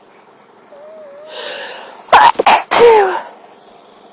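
A woman's sneeze about two seconds in, after a short breath in. It comes in two quick bursts and ends in a voiced cry that falls in pitch. It is part of a sneezing fit that she puts down to a cold or possibly a mild tree-pollen allergy.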